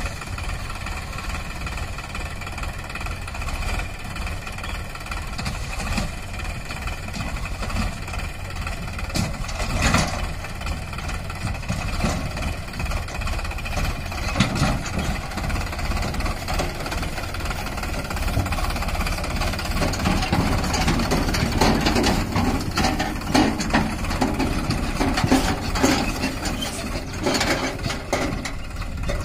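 Sonalika DI 47 RX tractor's three-cylinder diesel engine running steadily while the tipping trolley is raised to dump its load. The engine grows louder with clattering knocks in the second half as the trolley is worked and the tractor moves off.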